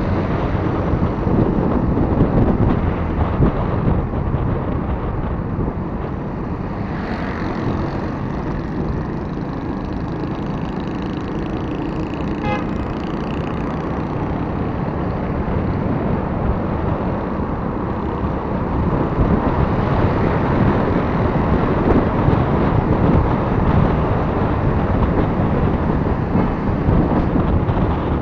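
Steady road, engine and wind noise from riding a motorcycle through city traffic, with a brief vehicle horn about halfway through.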